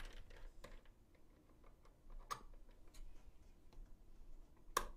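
Faint, scattered clicks and light taps of hands handling parts and cables inside a PC case, with a sharper click about two seconds in and another, the loudest, near the end.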